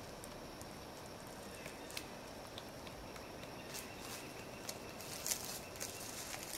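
Woodpecker pecking at wood: faint, irregular taps that come closer together in the last couple of seconds.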